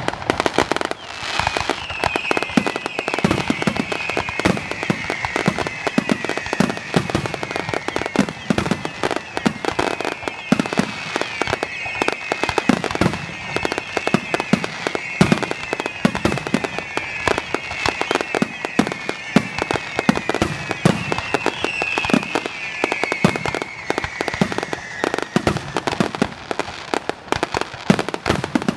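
Aerial fireworks display: a dense, continuous barrage of bangs and crackling bursts. Over most of it runs a high, wavering whistling tone that fades out near the end.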